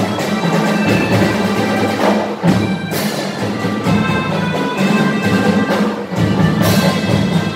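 A drum band (a marching band of brass and percussion) playing loud music: held horn chords over drums, with a sharp crash about three seconds in and another near the end.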